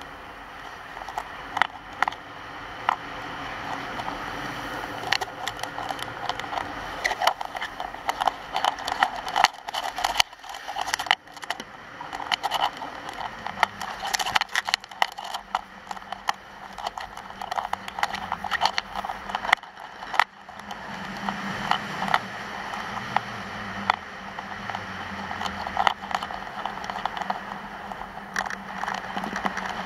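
Skis scraping over hard-packed groomed snow during a fast downhill run: a steady scratchy hiss broken by frequent sharp crackles as the edges bite and chatter.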